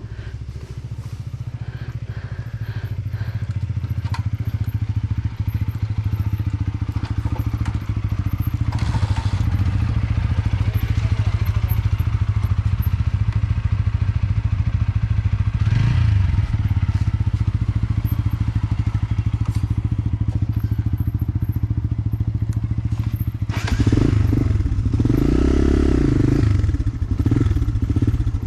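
Motorcycle engine running while riding, with road and wind noise, getting louder over the first several seconds. A louder, rougher stretch comes near the end.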